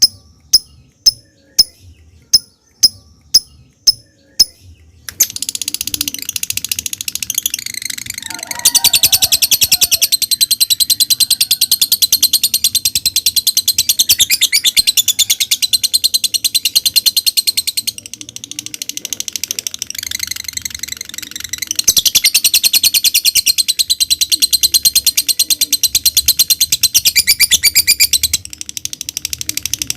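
Lovebird giving a run of single sharp high chips, about two a second, the ticking 'ngetik' call. About five seconds in it breaks into a long, rapid, high chattering trill, the 'ngekek' song. The trill eases off briefly in the middle and near the end.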